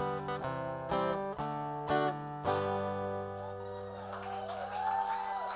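Acoustic guitar strumming the closing chords of a song, the last chord struck about two and a half seconds in and left ringing. As it fades, applause begins.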